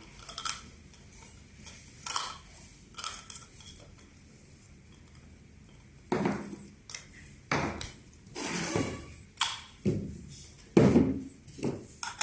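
Hard plastic parts of a true union ball valve knocking, clicking and scraping against each other as they are handled and fitted into the valve body. A few light clicks come in the first three seconds, then a run of louder knocks and rubbing starts about six seconds in.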